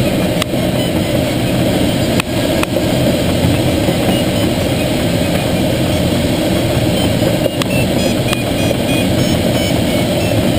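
Steady rush of air around a Schweizer 1-34 glider's cockpit on aerotow, with the tow plane's engine droning along underneath. A few light clicks or rattles break through, the first about half a second in and the last around eight seconds.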